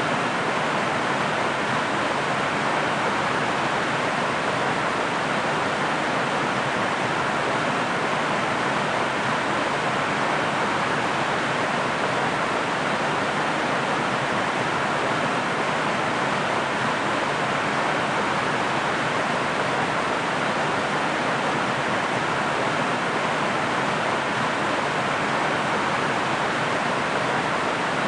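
A waterfall's steady rushing water: an even, unchanging hiss with no distinct splashes or other events.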